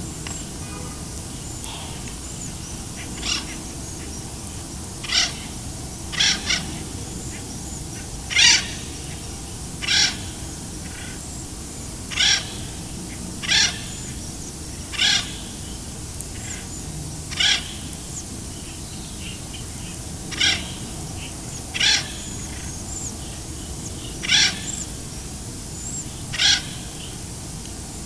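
An unidentified short call, repeated about fourteen times at uneven gaps of one and a half to three seconds, with faint high chirps in the background.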